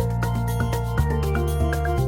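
Background music: a light, steady instrumental track with a regular beat.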